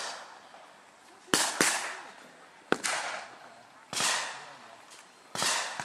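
Five rifle shots fired in the open: two in quick succession early on, then single shots about every second and a half. Each is a sharp crack trailing a long echo.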